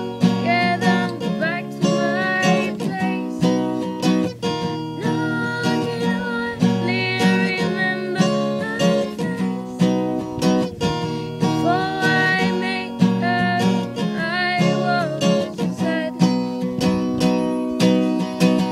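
Acoustic guitar music, strummed in a steady rhythm, with a melody line gliding between notes above it.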